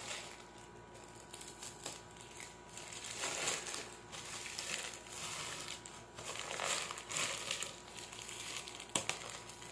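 Plastic packaging crinkling and rustling in irregular bursts as a yarn skein is unwrapped and handled, with a sharp click near the end.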